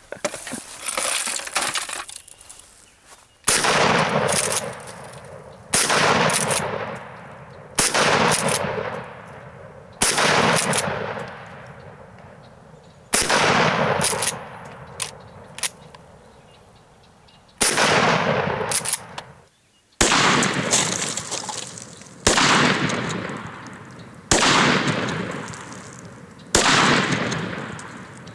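12-gauge Mossberg 500 pump shotgun firing slugs: about ten shots, mostly about two seconds apart with a longer pause near the middle, each ringing out in a long echo that fades before the next.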